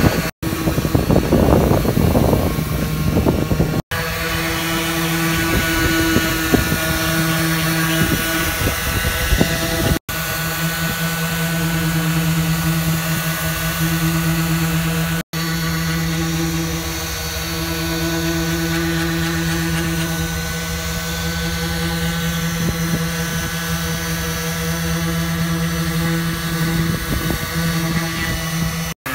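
Electric sander running steadily against a yacht's gelcoat, with a constant motor hum and grinding. The sound breaks off abruptly a few times.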